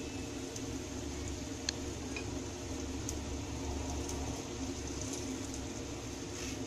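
Unniyappam balls frying in oil in an unniyappam pan: a steady soft sizzle and bubbling, with a few light clicks as a fork turns them against the pan.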